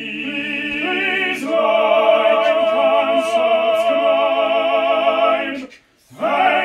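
Operatic singing with a strong vibrato on long held notes. It swells about a second and a half in, stops abruptly near the end, then starts again.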